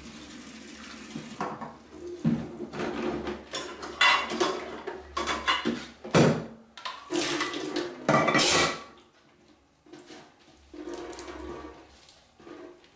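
Tap water running while diced red onion is rinsed in a stainless steel bowl, with the bowl clattering and water splashing in several loud bursts, the loudest about eight seconds in; quieter over the last few seconds.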